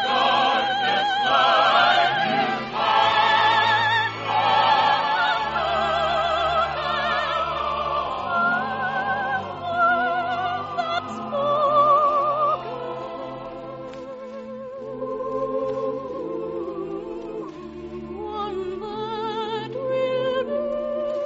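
Operetta number from a vintage radio broadcast: operatic singing with a wide vibrato over an orchestra, with a choir. It eases to a softer passage about halfway through.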